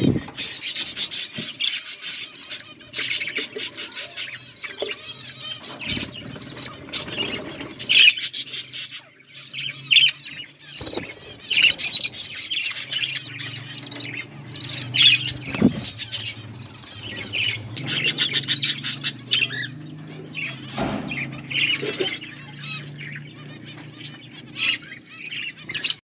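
Budgerigars chattering with a steady stream of rapid chirps and warbles. A few sharp knocks come through, and a low steady hum sets in about ten seconds in.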